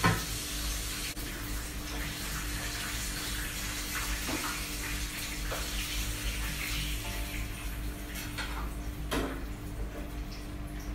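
Oil sizzling steadily in a frying pan as another lobster fries, with a few short knocks of a utensil on the pan or plate.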